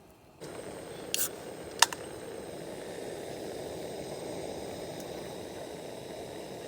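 Campfire burning: a steady rush with two sharp crackles, about one and two seconds in.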